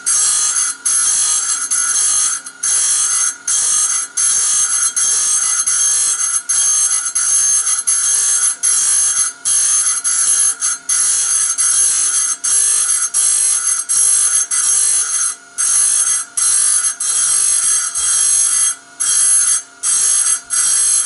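A small high-speed grinding tool whines at a high pitch as it sharpens the teeth of a band saw blade one after another. The sound is broken by many brief drop-outs as it comes off one tooth and moves to the next.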